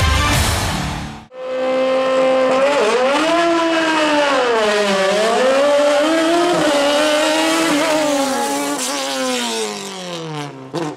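Radical SR4 sports-prototype race car's engine revving, its pitch rising and falling several times, then sinking as the car pulls away up the road. A sharp knock comes near the end. The first second is rock music that cuts off abruptly.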